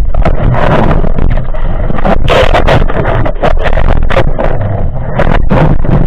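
Underwater noise through an action camera's waterproof housing as a spearfisher dives: a steady low rumble of water moving past the housing with irregular knocks and clicks from the diver's movements.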